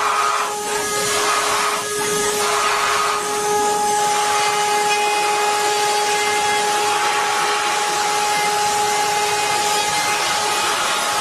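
Metalworking machine tool running: a steady loud hiss with steady humming tones, the lower hum dropping out near the end.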